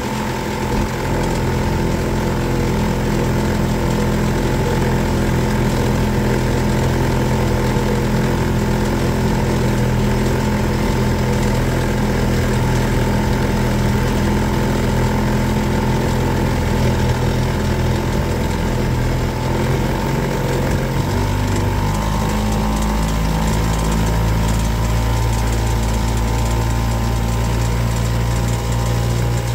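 Boat engine running steadily under way, its note shifting about two-thirds of the way through as the engine speed changes.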